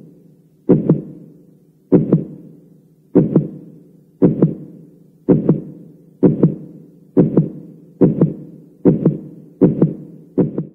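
Heartbeat sound effect: paired lub-dub thumps that quicken steadily, from a little under one a second to about one and a half a second.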